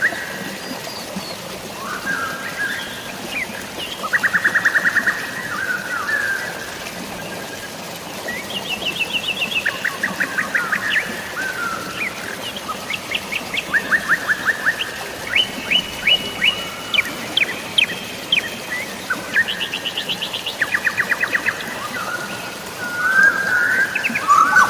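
Several songbirds chirping and singing rapid trills, a new phrase every second or two, over a steady hiss of falling water.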